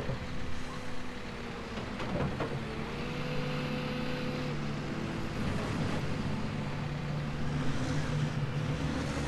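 Heavy diesel construction machinery running steadily on a soil excavation job, with a few sharp knocks in the first couple of seconds.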